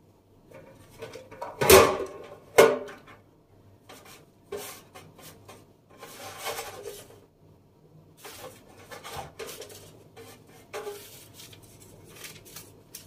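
Handling at a black metal baking tray: two sharp knocks about two seconds in, then scattered short rustles and scrapes.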